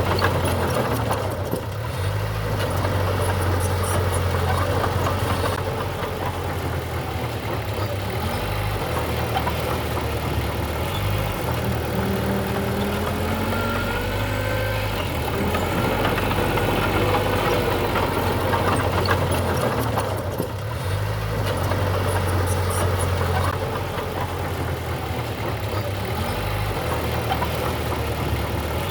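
Diesel engine of heavy earthmoving machinery running continuously, its speed stepping up and down every few seconds as the machine works.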